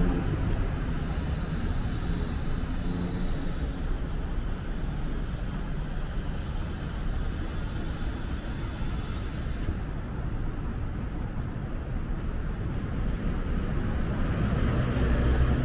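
City street traffic: a steady hum of passing cars, with a vehicle growing louder near the end.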